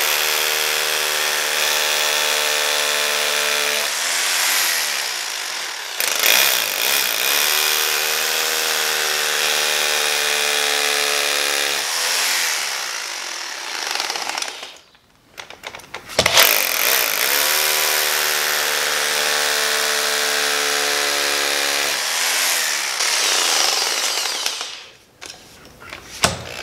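Rotary hammer with a masonry bit drilling into a bowling ball, running in three stretches of several seconds. Each run ends with the motor winding down, and there is a sharp knock between the second and third runs.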